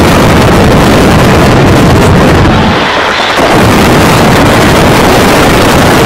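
Loud wind buffeting on the microphone, a steady rushing roar that eases briefly about three seconds in.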